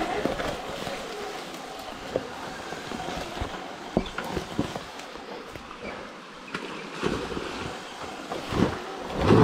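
Sur Ron electric dirt bike ridden fast over a leaf-covered dirt trail: steady tyre and wind noise on the microphone, with knocks and rattles as the bike hits bumps, the loudest thump about nine seconds in.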